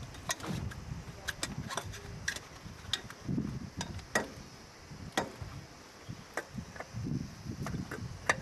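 Irregular sharp clicks and light knocks of hands and a tool working on parts in an engine bay, with a low rumble underneath.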